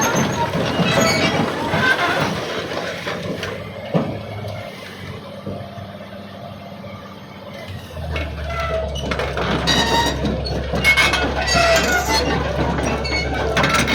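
Heavy machinery running with mechanical clatter and a sharp knock about four seconds in; about eight seconds in a steady low engine drone sets in and keeps going under the clatter.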